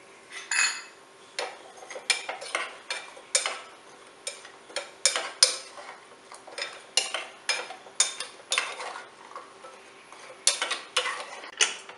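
Steel ladle stirring jaggery lumps in water in a small metal saucepan on a gas burner, clinking and scraping against the pan two or three times a second at an irregular pace, as the jaggery dissolves into syrup.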